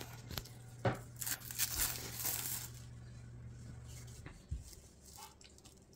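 Plastic wrap crinkling as it is peeled back from a bowl of apple filling, with a spoon clicking against the bowl. A faint low hum runs underneath and stops about four seconds in.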